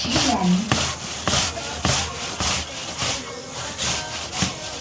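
Rhythmic scraping or rubbing strokes, about two a second, with a few sharp clicks among them.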